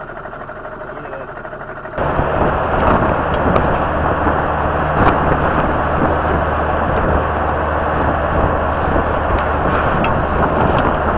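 A car engine running quietly, heard from inside the cabin. About two seconds in, a cut brings loud, steady wind noise on the microphone over vehicle engine and road noise, from a camera riding exposed on the outside of a moving vehicle.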